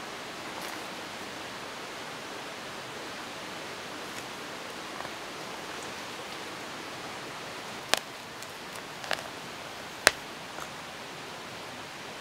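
A small metal trowel digging into stony soil gives three sharp clicks and knocks a second or so apart, the last the loudest. Under them runs a steady rushing hiss.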